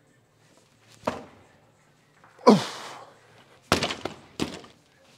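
Barbell loaded with bumper plates knocking against the boxes it rests on during a snatch from blocks: a knock about a second in, a loud sharp one midway, then two more thuds near the end.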